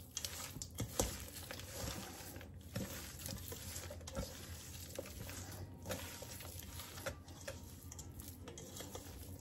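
Hands mixing raw ground meat in a stainless steel bowl: quiet, irregular squishing and patting, with a few light knocks.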